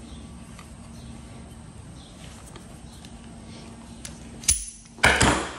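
Locking pliers clamped on a welded metal rod frame, working it loose from a cast relief: a sharp metallic click about four and a half seconds in, then a louder metal clatter and scrape that fades over about half a second.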